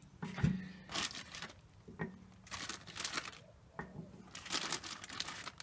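Hands handling homemade sawdust-and-candle-wax firelighter blocks and setting them down on a split log: several short bursts of rustling with a few light knocks in between.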